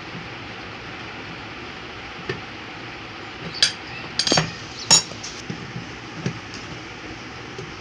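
A few sharp metallic clinks, about three close together around the middle, as tools and metal parts are handled during a washing-machine gearbox repair, over a steady background hiss.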